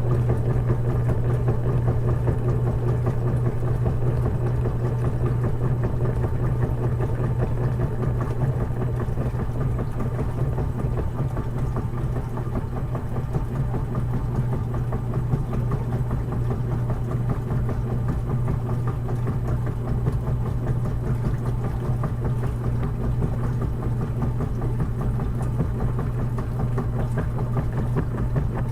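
Washing machine running with a steady low hum and an even, busy rumble over it.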